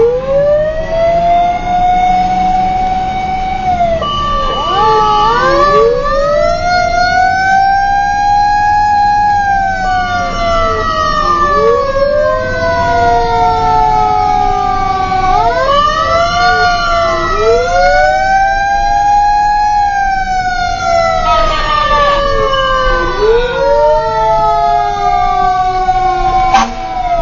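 Fire truck siren wailing, heard from inside the cab: it rises quickly, holds and slides down again, about every six seconds. A steady higher tone sounds between some of the wails, and the truck's engine and road noise rumble underneath.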